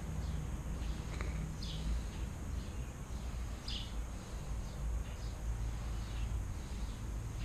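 Birds chirping now and then, short falling chirps, over a steady low rumble of outdoor background noise.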